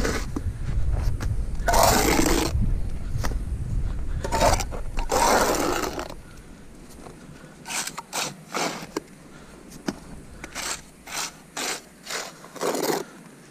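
Steel trowel scraping and spreading wet cement mortar along the tops of concrete foundation blocks. A few longer scrapes over a low rumble in the first half, then a run of short strokes about two a second.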